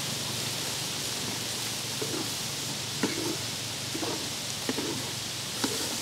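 Grasshoppers frying in a wok over a wood fire with a steady hiss, and a wooden spatula scraping and stirring them a few times.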